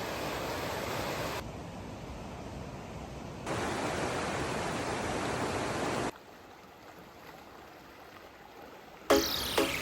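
Steady rush of stream water that jumps in level at several abrupt cuts and is quietest in its last few seconds. Plucked-guitar music comes in near the end.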